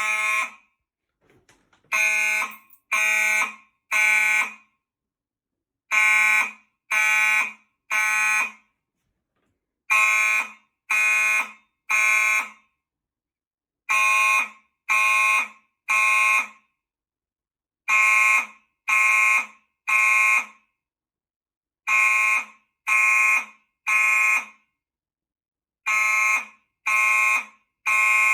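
Gentex fire alarm horn strobes sounding together in the temporal-three (code 3) evacuation pattern: three horn blasts about a second apart, then a pause, with the group repeating every four seconds. This is the system in alarm after a manual pull station was activated.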